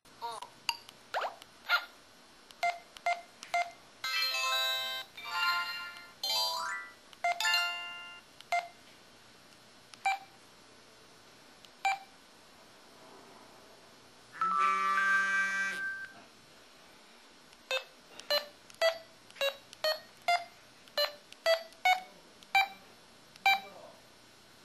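LG-KP6300 mobile phone's built-in sound effects played through its speaker: many short single beeps spaced about a second apart, a few short melodic jingles about four to eight seconds in, and one louder rich chime lasting over a second near the middle.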